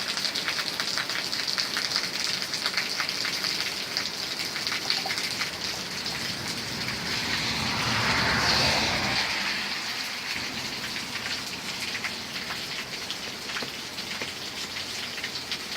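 Heavy rain pouring down, a dense patter of drops striking surfaces. About halfway through, a louder rushing swell builds and fades over a few seconds.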